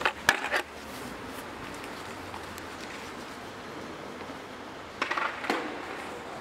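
A skateboard clacks sharply against stone paving tiles several times in quick succession, followed by faint, steady street ambience with a brief swell of noise and a couple of clicks about five seconds in.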